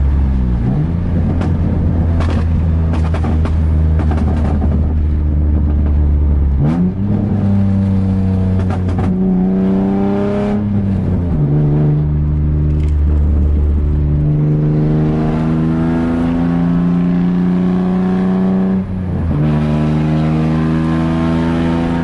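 Nissan 350Z's 3.5-litre V6 running loud and rough through a major exhaust leak, so that it sounds like open headers: nasty and ugly. The engine note holds, then climbs in pitch in several steps, with brief dips about 7 and 19 seconds in.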